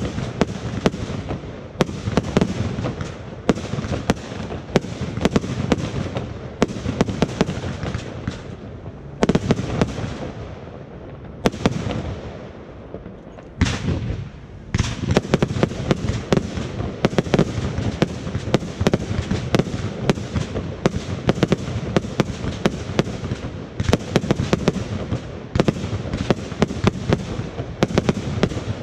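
Fireworks display: a dense, rapid run of bangs and crackles from bursting fireworks. About halfway through the firing thins out briefly, then a single loud bang sets off another thick barrage.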